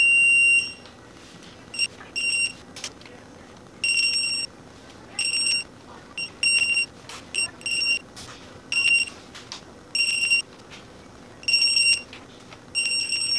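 Kobalt digital torque wrench beeping each time a cylinder-head stud reaches the preset 30 N·m (22.1 ft-lb) on the first tightening pass: one long steady beep at the start, then about ten short high beeps or beep pairs every second or so. Faint clicks from the wrench's ratchet head between the beeps.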